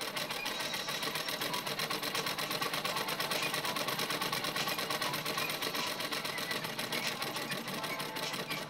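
Electric sewing machine running steadily, a rapid, even clatter.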